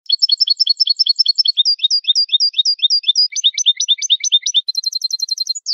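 European goldfinch singing in the malagueño song style: several runs of rapid repeated notes, each run a different note, ending in a quick downward slide.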